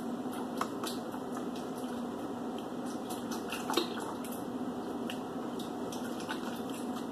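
Steaks being squished and turned by hand in a wet marinade of barbecue sauce, seasoning and beer inside a stainless steel stockpot: wet squelching with scattered small clicks, and one louder knock a little before the middle.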